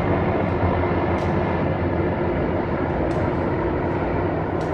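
A formation of military helicopters flying low overhead: a loud, steady rotor and engine rumble.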